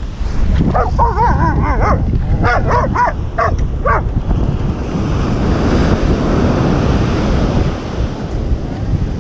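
An animal calling: a run of wavering cries, then about five short yelps, all within the first four seconds. Under it, waves breaking on the beach and wind buffeting the microphone, with the wind noise heavier after about four seconds.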